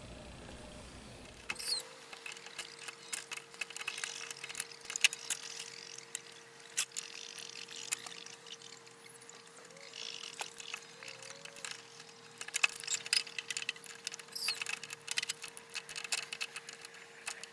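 Scattered metal clicks and taps of hand tools working on battery terminals while a new battery is hooked up in a riding mower, with a faint steady hum underneath.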